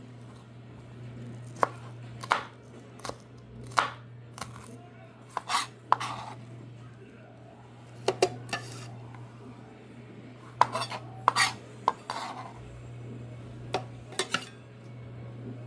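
Knife chopping food on a cutting board: a string of sharp, irregularly spaced knocks, some in quick pairs.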